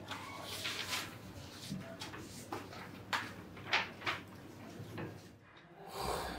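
Clicks and light knocks of a mobile phone being handled and tapped, a string of short sharp ticks spread over several seconds. About six seconds in, a brief rushing swell.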